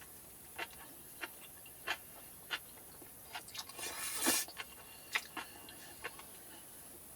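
Scattered sharp clicks and small knocks at uneven intervals, with a brief louder rustle about four seconds in.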